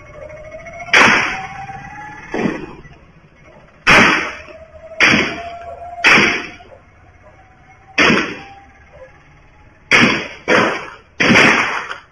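Gunshots picked up by a CCTV camera's microphone: about nine sharp reports at uneven intervals, each with a short echoing tail. The last three come in quicker succession near the end.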